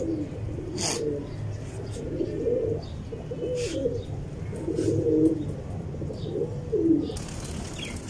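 Fantail pigeons cooing, about six low coos one after another, with a brief sharp noise about a second in.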